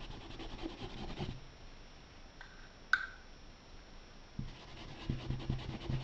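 Paintbrush bristles scrubbing and rubbing on fabric as paint is spread and blended, a soft scratchy sound that pauses for a few seconds in the middle. One sharp click about three seconds in.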